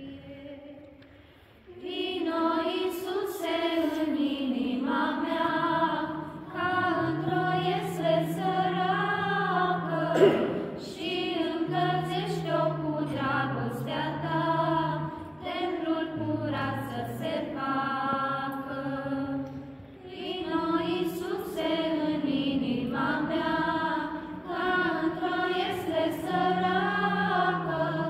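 A group of women's voices singing a Romanian Christmas carol (colind) unaccompanied, in phrases with short breaks between them; a lower voice line comes in about seven seconds in. A single sharp click is heard about ten seconds in.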